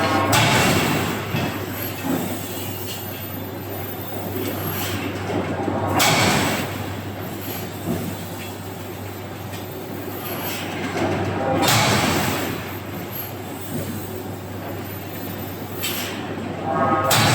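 Heavy forging-shop machinery running with a steady low hum, and a loud screeching, grinding surge of metal on metal about every five and a half seconds, four times in all.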